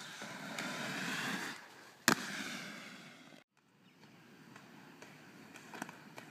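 Skate wheels rolling on pavement and building up, then one sharp, loud landing impact about two seconds in, with the rolling fading after it. The sound cuts off suddenly about a second later, leaving quieter background with a few light clicks.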